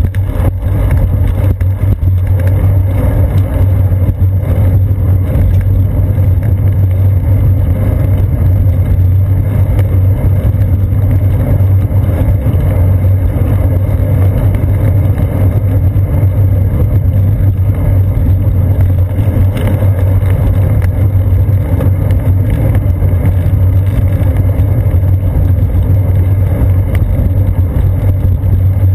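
Riding noise from a bicycle on a paved path: a loud, steady low rumble of wind and road vibration picked up by a seat-post-mounted GoPro Hero 2 camera in its housing.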